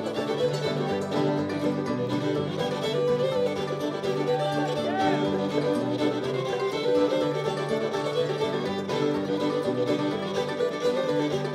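Bluegrass/old-time string band playing an instrumental, with a fiddle leading over mandolin and other plucked strings.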